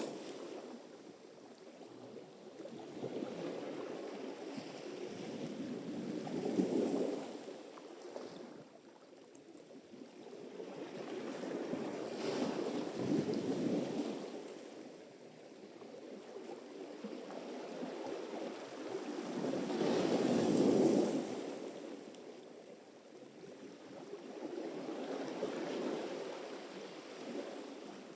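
Sea surf: waves breaking and washing in, the rushing noise swelling and fading four times, about every six to seven seconds, with the loudest wave about three quarters of the way through.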